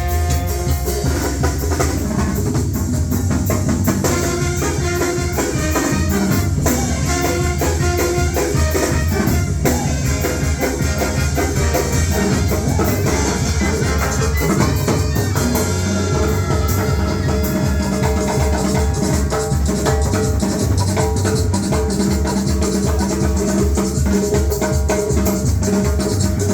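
Loud music with a drum kit and percussion, playing steadily.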